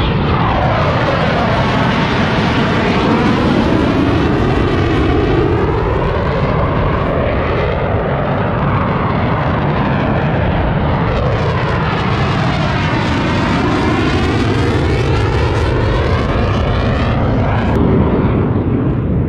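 Blue Angels F/A-18 jets flying low past overhead, a loud, steady jet noise. The pitch sweeps down and back up in a whooshing phasing effect twice, once early and again about halfway through, as they pass.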